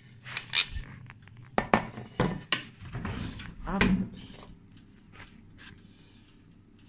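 A metal cake pan knocking and clattering against an oven's wire rack as it is set inside, a handful of sharp knocks over the first few seconds, then quieter.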